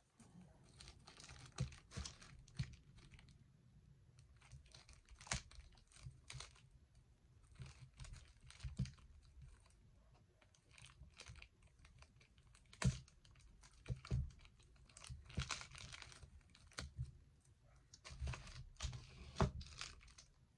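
Small clear plastic bags crinkling and rustling as they are handled, with scattered light clicks and taps, one louder click about thirteen seconds in.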